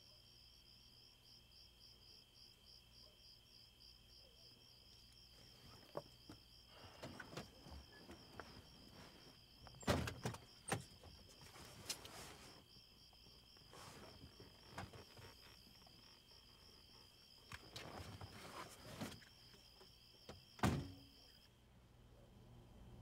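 Crickets trilling in a steady, pulsing chorus, over which come scattered soft thunks and clicks of someone moving about and handling things inside a car, two of them louder. The crickets cut off near the end.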